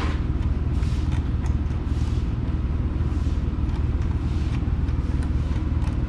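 Steady low rumble of workshop background noise, with a few faint light clicks as a stainless flared hose fitting is threaded on by hand.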